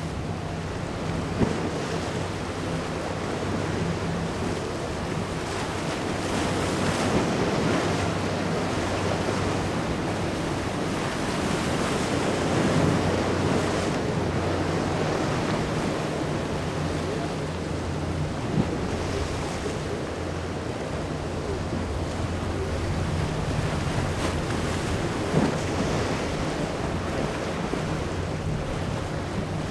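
Breaking surf and rushing water with wind buffeting the microphone, over the steady low drone of a motor yacht's engines. A few short sharp knocks stand out, one near the start and two in the second half.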